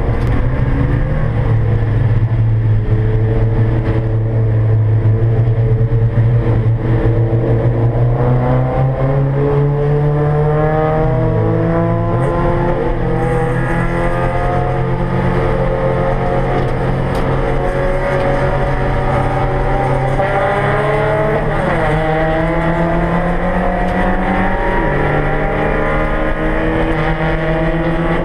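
Porsche 944 race car's inline four-cylinder engine heard from inside the cabin, pulling hard under acceleration with its pitch climbing steadily, then dropping sharply at an upshift about three-quarters of the way through before climbing again.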